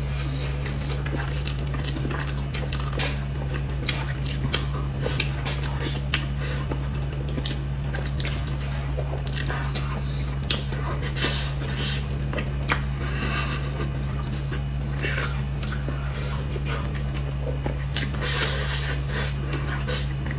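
Eating sounds of soft cream cake being chewed, with frequent light clicks and scrapes of spoons against plates, over a steady low hum.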